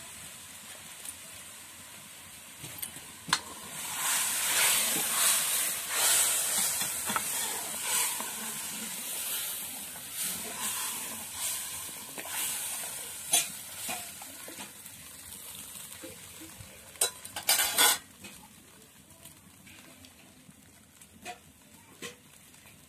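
Hot oil with whole spices sizzling in a kadai over a wood fire, loudest in the first half. Scattered sharp clicks and knocks run through it, with a cluster of loud clacks near the end, after which the sizzle dies down.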